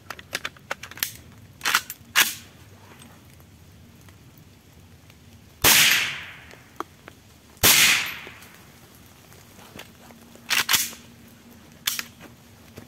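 Saiga-410 semi-automatic .410 shotgun firing two shots about two seconds apart, each with a long fading echo. A few short sharp clicks come before and after the shots.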